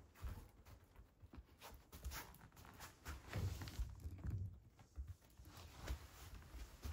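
Quiet room with soft footsteps and light knocks on tatami mats, and a few low thumps midway.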